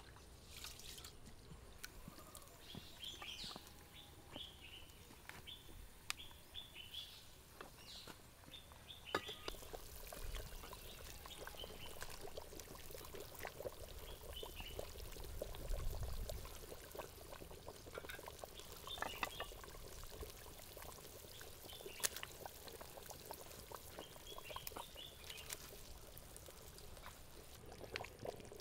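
Water running and splashing, with many small irregular splashes.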